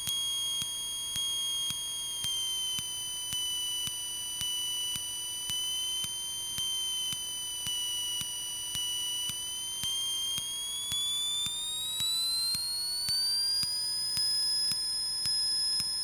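Cessna 152's four-cylinder Lycoming engine at full throttle on the takeoff roll, heard through the cockpit intercom as a steady high whine that rises in pitch from about ten seconds in as the plane gathers speed.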